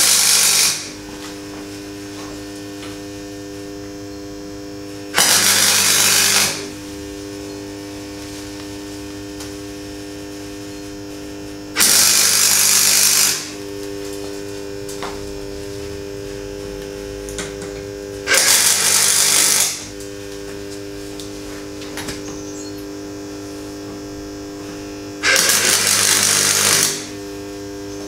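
Wire-feed welder laying tack welds on a steel frame: five short bursts of arc crackle, each about a second long and some six seconds apart, with a steady hum between them.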